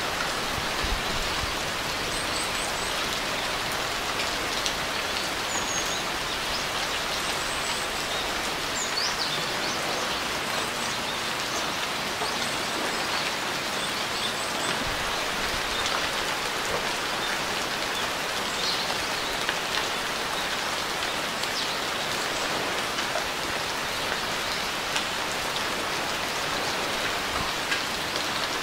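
Steady rain falling and pattering on surfaces, an even hiss with scattered drop ticks. A few faint, high bird chirps break through now and then.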